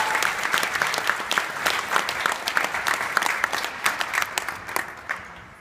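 Audience applauding, with sharp claps from someone close by; the applause dies away near the end.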